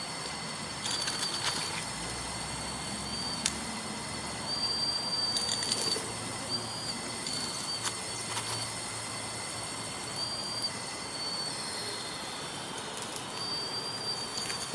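1:16 scale RC Komatsu PW180 model excavator's small motors whining high in short stop-start runs as the arm, boom and upper body move, with brief gritty rasps and a few sharp clicks.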